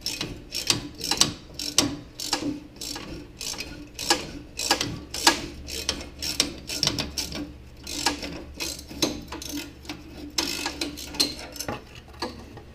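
Hand ratchet clicking in quick, uneven strokes as it turns a rusted exhaust manifold-to-pipe flange bolt.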